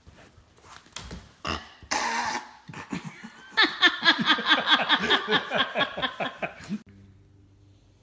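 A pet pig grunting in a quick string of short, pitched grunts, about eight a second, for roughly three seconds, after a few softer snuffles and clicks. The grunting cuts off abruptly near the end, leaving only a faint low hum.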